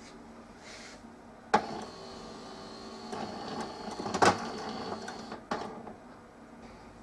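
Melitta Caffeo CI automatic coffee machine clicking and whirring inside, with its pump silent: three sharp clicks spread over a few seconds, with a faint mechanical whirring and a thin high whine between them. No rinse water comes and the machine falls back to 'system start', which the repairer puts down to no pressure building in the system.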